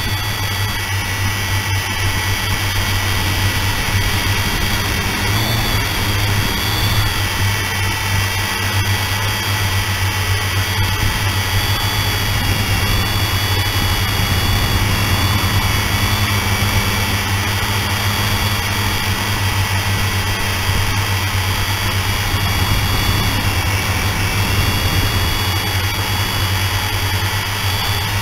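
Propel HD Video drone's electric motors and propellers running in flight, heard close up through its onboard camera's microphone: a steady buzzing whine with a low hum underneath and high tones that waver slightly in pitch.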